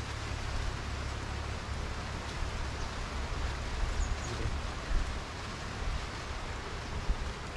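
Wind on the microphone: a steady, even hiss over a low rumble.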